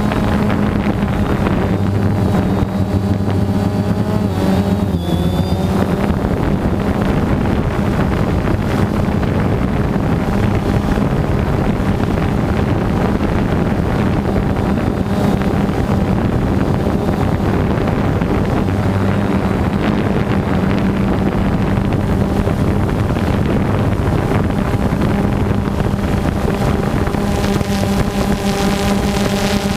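Multirotor drone's electric motors and propellers humming steadily, heard from the camera on board, with wind noise on the microphone. The pitch dips and bends briefly about five seconds in, as the motors change speed.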